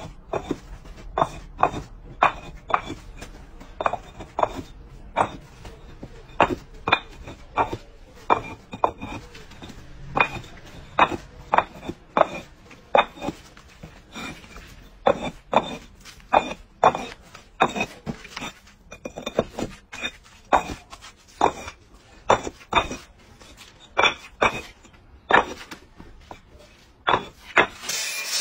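Concrete paving blocks knocking and clinking against each other as they are lifted off a stack and set one by one into a herringbone edge, a sharp knock every second or so, some in quick pairs. Right at the end a block-cutting saw starts up.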